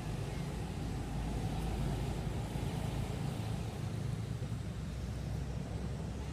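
A steady low rumble of outdoor background noise, with no distinct events standing out.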